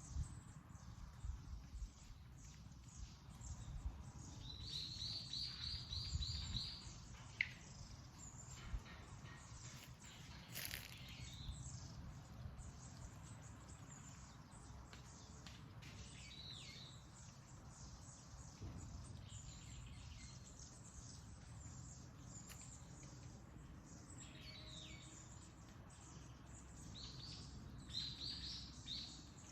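Wild birds calling, many short high chirps throughout, with quick runs of repeated notes about five seconds in and again near the end. A steady low rumble sits underneath.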